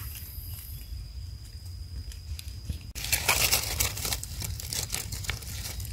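Dry leaf litter crackling and crinkling as hands clear the fallen leaves around a red Russula mushroom on the forest floor. The stretch is faint with a few clicks, then from about three seconds in comes a string of sharp crackles.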